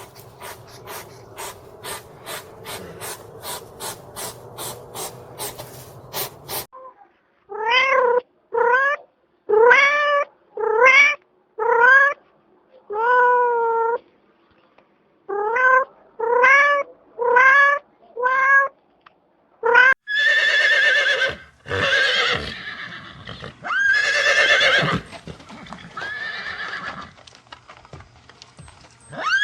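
Regular clicking, about two or three clicks a second, for the first six seconds. Then a cat meowing: about a dozen short rising meows, roughly a second apart. From about twenty seconds in, a horse neighing and whinnying in several long, loud calls.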